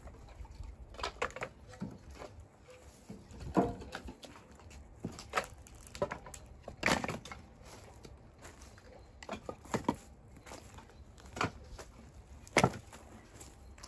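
Split firewood logs clunking against one another as they are handled and stacked: about ten hollow wooden knocks at irregular intervals, some with a short ring after them.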